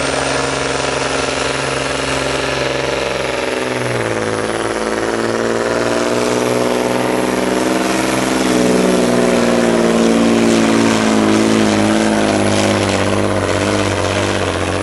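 Volvo pulling truck's diesel engine held at high revs, then pulled down under load about four seconds in as it drags the weight-transfer sled, its pitch sagging and climbing again as it keeps pulling down the track.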